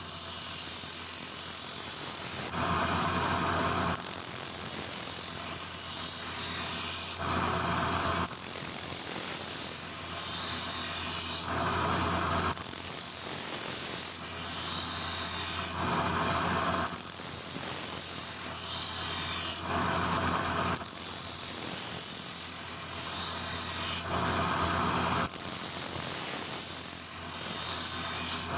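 Hand file or rasp worked in long repeated strokes, a rough scraping hiss that comes and goes every second or two.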